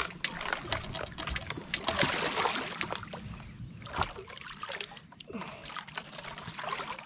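A small hooked fish splashing and thrashing at the water's surface beside the boat, with water dribbling and a louder splash about two seconds in.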